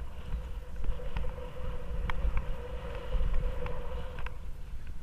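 Wind buffeting the microphone of a camera on a bicycle riding a pump track, under a steady hum from the tyres rolling on the track surface with scattered rattling clicks from the bike. The tyre hum and clicks fade about four seconds in.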